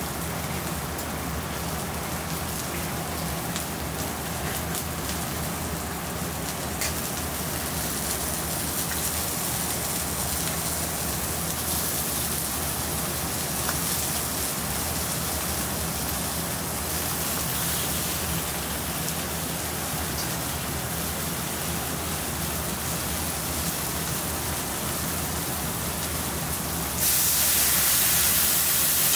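Cooking sizzle: a steady hiss with small crackles over a low steady hum, jumping suddenly to a louder, brighter hiss near the end.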